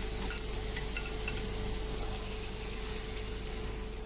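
Chopped onions sizzling steadily in hot oil in a frying pan, with a few faint crackles in the first second or so.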